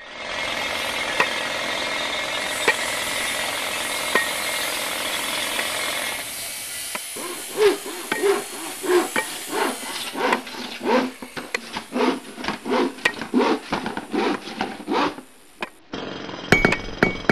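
Tool-work noises: a steady rasping noise for about six seconds, then a run of separate scraping strokes at about two a second, ending in a few sharp clicks.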